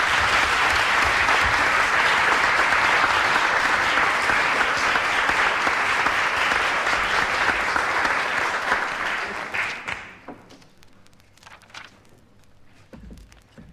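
Audience applauding, fading out about ten seconds in, followed by faint clicks from the worn vinyl record the live reading was pressed on.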